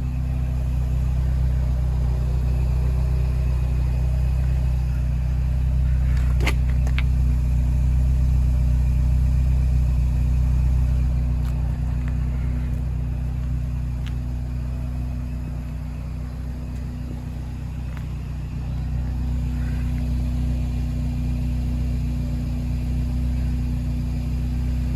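Scion xB's 1.5-litre four-cylinder engine idling steadily, with a brief click about six seconds in.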